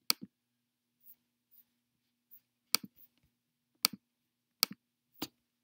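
Computer clicking: five sharp clicks, most heard as a quick press-and-release double, one right at the start and four more about a second apart from near the third second on, over a faint steady hum.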